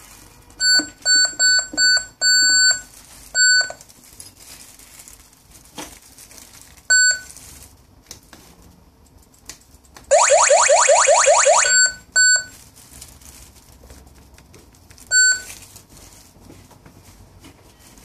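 G5 GSM alarm panel's built-in speaker giving short single high beeps, six in quick succession and then a few more spaced out. About ten seconds in, as the wireless door sensor is triggered, it sounds a loud siren of fast-repeating rising sweeps for about two seconds.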